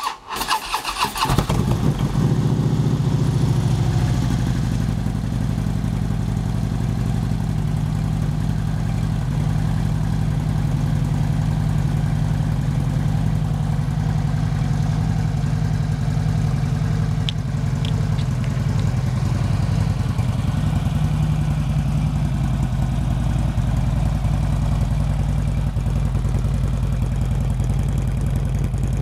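2013 Harley-Davidson Dyna Switchback's Twin Cam 103 V-twin cranked on the electric starter, catching after about a second and a half, then idling steadily through a Bassani Road Rage full exhaust. It is a cold start after two weeks sitting, so the engine idles high.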